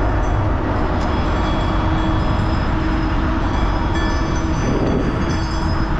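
Steady rumble of wind and road noise on a GoPro action camera while riding a bike, with a steady hum underneath.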